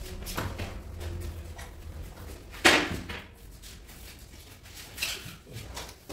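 A large floor tile being laid onto a bed of combed tile adhesive: one loud thump about two and a half seconds in as it comes down, and a smaller knock about five seconds in while it is pressed into place.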